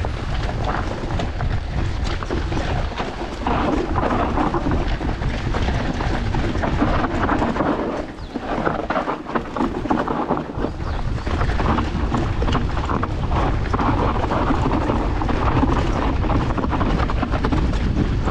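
Mountain bike riding downhill on a rough enduro trail: tyres and frame rumbling and rattling over stones, with a brief lull about eight seconds in.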